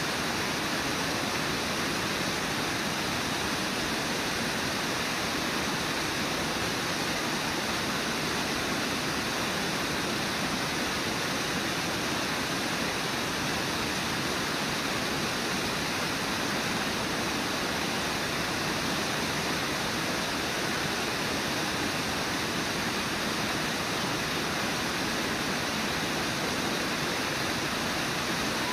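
Waterfall and whitewater rapids rushing in a steady, unbroken roar of water.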